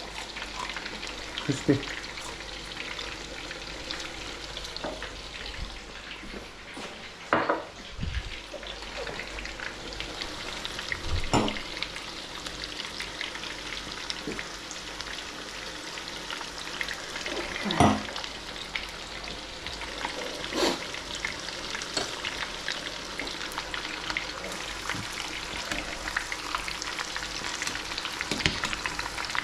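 Chicken bhajis sizzling as they fry in hot oil, a steady crackle throughout, with a few short knocks from a utensil in the pan, the loudest about eighteen seconds in.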